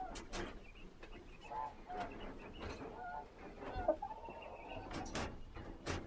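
Poultry giving a few soft, short calls, one held a little longer, mixed with brief knocks and rustles of handling close by.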